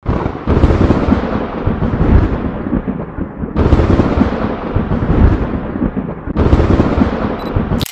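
Thunder: three claps, at the start, about three and a half seconds in and about six and a half seconds in, each rolling away into a long rumble.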